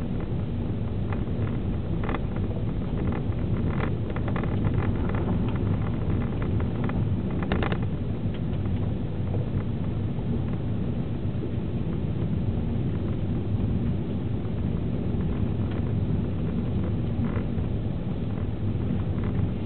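Steady in-cabin drone of a 2009 Vauxhall Astra's 1.8-litre four-cylinder petrol engine with tyre and road noise as the car drives along. Light clicks and rattles come and go in the first half, the strongest at about eight seconds in.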